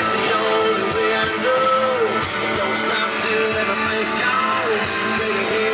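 Rock song with singing and guitar playing loud through a pickup truck's newly installed aftermarket stereo, 10-inch Orion subwoofers and door speakers, heard inside the cab. The bass is not hitting as hard as it can, which the owner puts down to low batteries starving the amps.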